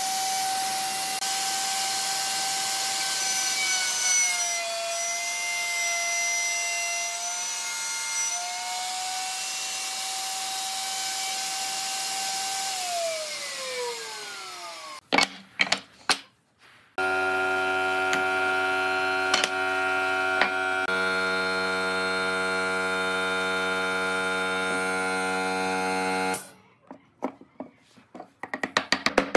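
Table-mounted wood router running at speed, its pitch sagging for a few seconds as the bit cuts a groove along a pine strip, then switched off and winding down with a falling whine. After a short pause a steady machine hum runs again for several seconds and cuts off suddenly.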